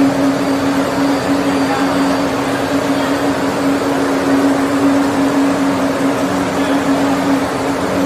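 Industrial continuous fryer line running: steady machine noise from the conveyors and their geared motors, with a constant hum.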